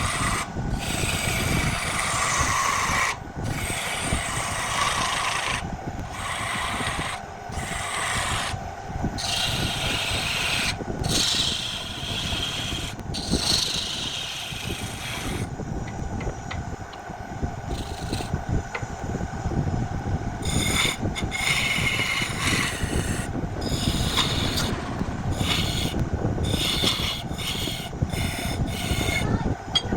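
Wood lathe running with a steady hum while a tool works the spinning wood, giving a rasping, scraping noise in repeated passes that break off briefly whenever the tool leaves the wood.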